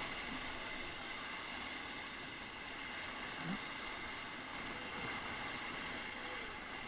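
Whitewater river rushing steadily around a raft.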